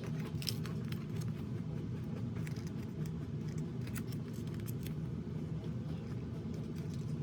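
Photobook pages being handled and turned: faint paper rustles and light taps over a steady low background hum.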